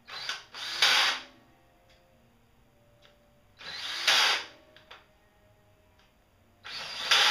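Cordless drill/driver running screws into a CNC linear rail in three short bursts about three seconds apart, each ending abruptly. The driver's clutch is set to kick out at a set tightness, so the screws are only snugged and then finished by hand.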